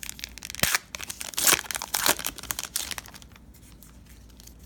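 Wrapper of a trading card pack being torn open and crinkled by hand, with several loud crackling rips in the first three seconds, then quieter.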